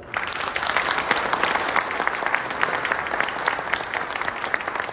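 An audience applauding, the clapping starting suddenly and holding steady, easing off slightly near the end.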